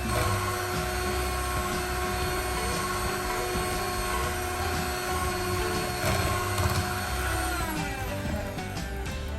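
Small electric motor whirring steadily, then slowing with a falling pitch near the end.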